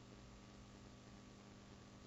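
Near silence: room tone with steady hiss and a faint low hum.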